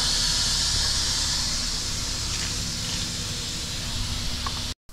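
A steady hiss, strongest in the upper range, that eases off slightly and cuts off abruptly near the end.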